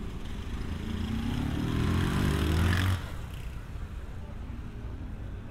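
A motor vehicle accelerating on the street, its engine rising in pitch and growing louder, then cutting off abruptly about three seconds in. Steady city street noise follows.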